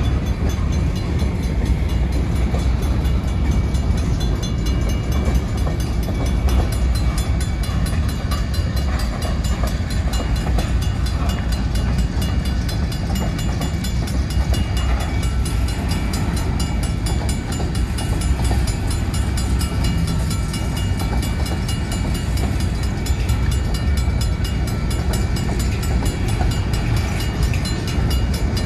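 Freight train of covered hopper cars rolling past at close range: a steady, heavy rumble of steel wheels on rail that carries on without a break.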